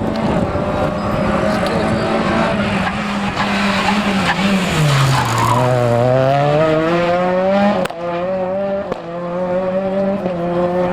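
Rally car engines at high revs on a special stage. About four and a half seconds in the engine pitch drops sharply as the car brakes and changes down, with tyres squealing, then climbs steadily as it accelerates out. It breaks off suddenly just before eight seconds, and an engine holds a steady pitch after that.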